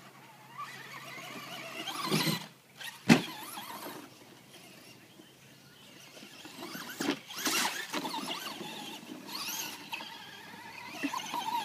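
Traxxas Slash VXL RC truck's brushless electric motor whining in several short high-pitched bursts as it is driven and accelerated across grass, with one sharp knock about three seconds in.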